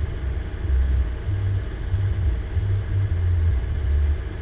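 Ford Explorer Sport's 3.5-litre twin-turbo EcoBoost V6 running at idle, heard close to the tailpipe as a low, uneven exhaust rumble.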